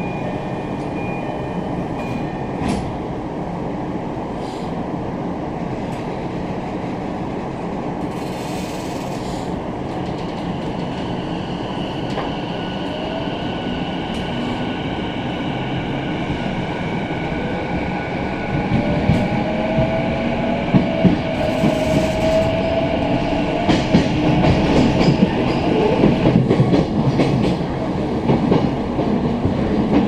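Inside a JR East E233-series commuter car running on the line, with a steady rumble and clatter. About a third of the way in, a thin high-pitched whine joins. In the second half a lower tone slides up and down in pitch while the running gets louder with irregular knocks. This is the unusual noise (異音) the car makes on this stretch.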